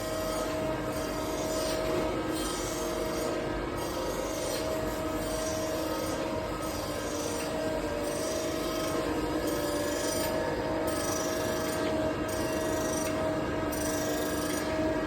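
Surface grinder running with a steady hum from the wheel spindle, while the abrasive wheel grinds the workpiece in a hiss that swells and fades about once a second as the table traverses back and forth.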